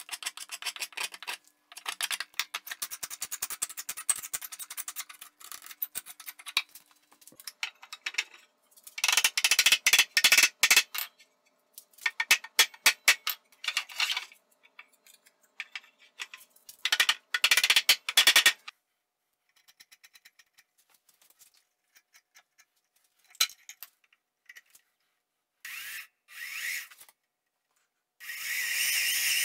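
Hand rasp scraping along a wooden chair leg in fast strokes, in several runs with pauses between. It gives way to a few scattered knocks of wood on wood, and near the end a steady stretch of a bit boring into a stretcher.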